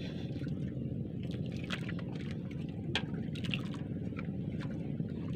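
Steady low rumble of a small fishing boat's engine running, with water sloshing and a few light clicks from handling the fishing tackle.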